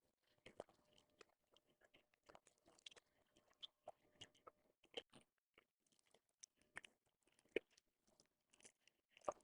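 Faint crackling and small plastic clicks as wiring and connectors are worked out of a motorcycle's plastic headlight-surround part, with a few sharper clicks about five seconds in, at about seven and a half seconds and just before the end.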